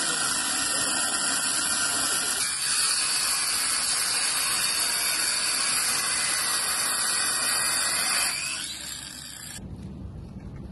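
Angle grinder with a cutting disc grinding through the metal casing of an air compressor: a loud, steady, hissing screech of disc on steel that stops about eight seconds in and quickly dies away.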